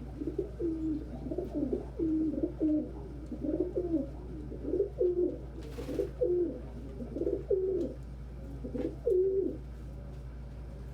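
Domestic pigeons cooing over and over, a string of low rolling coos about one a second that stops shortly before the end. A brief rush of noise cuts in about six seconds in.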